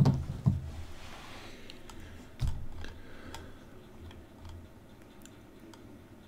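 Light clicks and taps of small hobby tools and plastic parts being handled on a hard workbench. There are two sharper clicks at the start and a dull knock about two and a half seconds in, then faint scattered ticks.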